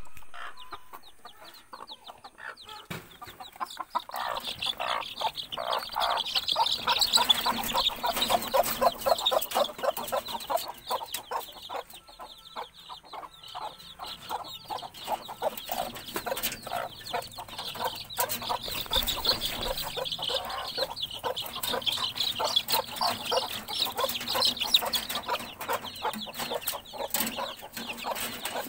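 A brood of native and Silkie chicken chicks cheeping in a dense, rapid chorus of short high calls. The calls are sparse for the first few seconds, then near-continuous.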